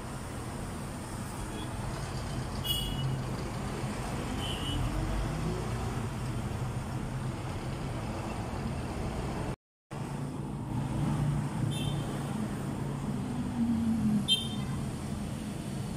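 Road traffic passing: a steady rumble of engines and tyres, with a few brief high squeaks. About ten seconds in, the sound cuts out completely for a moment.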